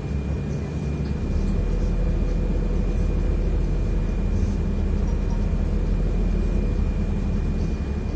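City bus's engine and road noise heard inside the passenger cabin while the bus moves: a steady low rumble that grows louder about a second in, with a thin high tone held steady over it.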